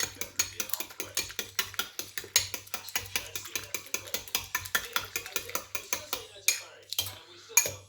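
A metal fork beating and scraping half-set egg in a bowl: a quick run of clicking strokes against the bowl, slowing to a few separate taps in the last couple of seconds. The egg is being broken up midway through microwave cooking so it stays soft and does not turn rubbery.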